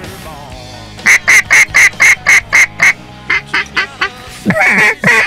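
Duck call blown by a hunter to flying ducks: a run of about eight even, loud quacks at about four a second, then a few softer short quacks, then louder, longer quacks near the end.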